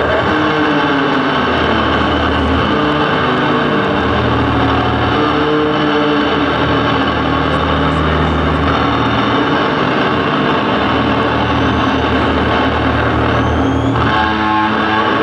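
Heavily distorted electric bass played solo through a concert PA: loud, sustained low notes held for a second or two each, with sliding pitch bends, giving an engine-like drone.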